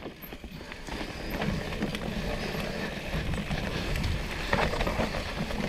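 Mountain bike riding down a dirt trail: a steady rush of tyres rolling over earth and leaf litter, with a few knocks from bumps.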